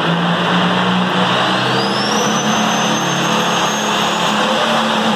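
A small modified pulling tractor's engine running loudly while hooked to the sled. A high whine rises about a second and a half in and holds as the engine is brought up.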